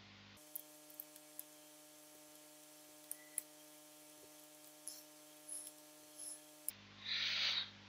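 Faint, scattered computer keyboard and mouse clicks over a low steady electrical hum, with a brief hiss near the end.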